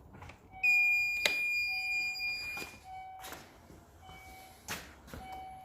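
Portable jump starter pack beeping as it is switched on: a long high beep with a sharp click about a second in, followed by shorter beeps repeating about once a second.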